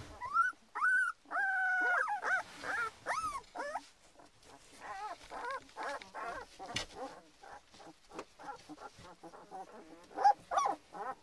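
Two-week-old puppy whining and crying in high, wavering squeals: a quick run of loud cries in the first few seconds, then fainter repeated whimpers, and a couple of louder cries again near the end.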